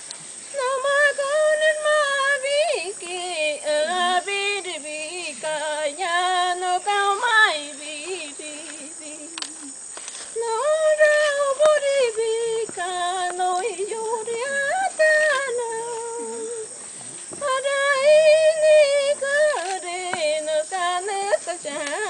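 A woman's solo voice singing an icaro, a Shipibo sacred healing song: long high melodic phrases with quick wavering trills, breaking off for breath about ten seconds in and again about seventeen seconds in.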